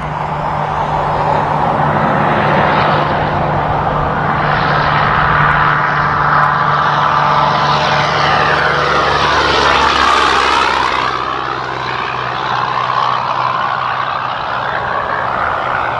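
Freightliner Cascadia semi-truck passing by with a steady engine and tyre rush. The sound builds to a peak about ten seconds in, then fades as the truck moves away, with other traffic behind it.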